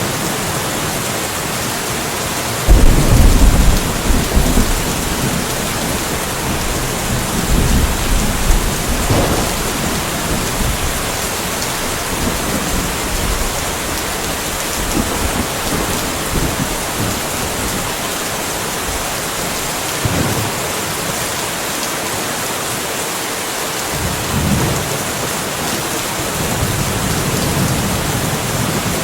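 Steady rain falling with rolls of thunder: a sudden loud low rumble about three seconds in, then weaker rumbles around eight seconds, twenty seconds and twenty-five seconds.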